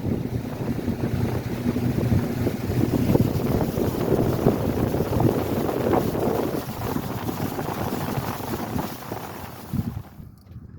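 A boat's motor running under way, with wind buffeting the microphone. The noise drops away sharply near the end.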